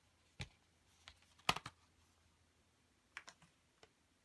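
Sharp taps and clicks from handling a CD album's cardboard and plastic packaging as its photo book is taken out: a handful of separate knocks, loudest about a second and a half in.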